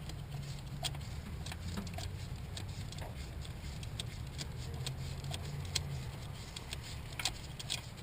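Scattered light clicks and clinks of tools being handled, over a steady low hum.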